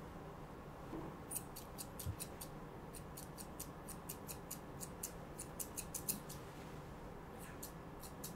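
Grooming shears snipping quickly and faintly in irregular runs of crisp cuts, trimming the fine fur on a Pomeranian puppy's face. The snipping starts about a second in.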